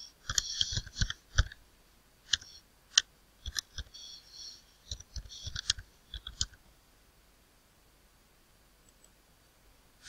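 Computer keyboard keys clicking in quick irregular runs as a name is typed, stopping about six and a half seconds in.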